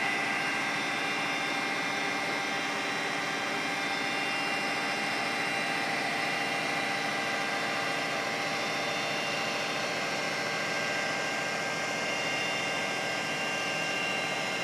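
Water booster station blower running loud and steady: an even mechanical noise with several steady whining tones over it.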